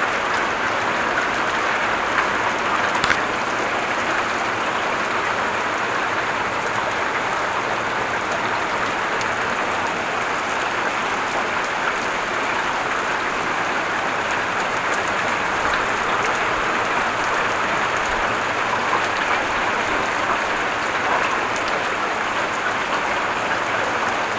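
Heavy rain pouring down in a steady, dense hiss, with a couple of sharp ticks about two to three seconds in.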